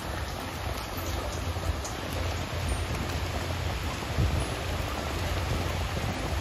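Shallow sea surf washing over a sandy shore, with feet splashing through the water and wind rumbling on the microphone. A short low thump comes about four seconds in.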